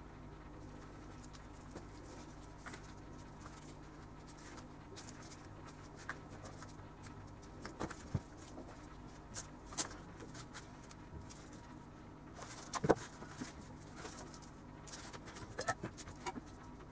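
Hand-stitching leather: faint scattered taps, clicks and rubbing as a needle and thread are worked through a sheath held in a vise, with a sharper knock about two-thirds of the way through, over a low steady hum.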